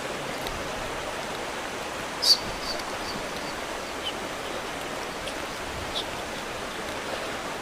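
Steady hiss of room noise with no voices, broken about two seconds in by one short, sharp, high-pitched click or chirp, with a couple of fainter ticks later.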